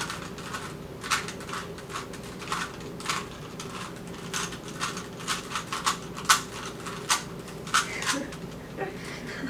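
Rubik's cubes being twisted: quick, irregular plastic clicks as the layers are turned, several a second, over a faint steady low hum.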